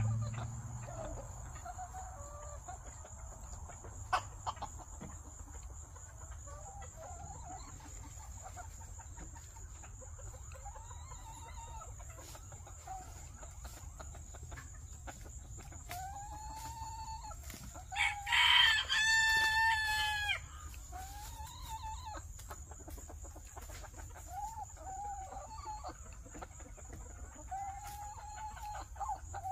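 A rooster crows once, a loud call of about two and a half seconds a little past halfway through. Shorter, quieter chicken calls come before and after it, over a steady high-pitched hum.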